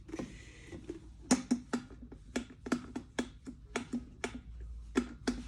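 A series of sharp, irregular clicks and light taps, roughly two a second, as the parts of an electric kettle are handled and tested during its repair.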